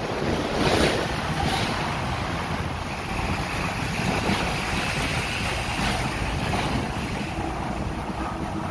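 Hong Kong double-decker tram running along its street rails, a steady rumble of wheels and motor with wind on the microphone. A faint high whine joins for a few seconds in the middle.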